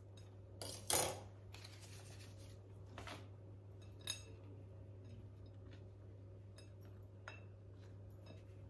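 Scissors snipping ribbon about a second in, followed by light rustling and a few small clicks as the ribbon is handled, over a low steady hum.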